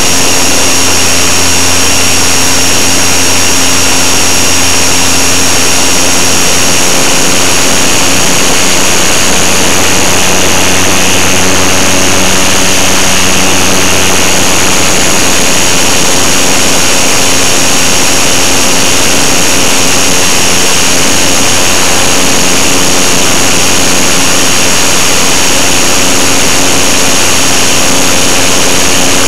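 Electric motor and propeller of a GWS Beaver RC model plane running steadily at cruise, a constant high whine over a rush of wind, loud and close from a camera mounted on the plane.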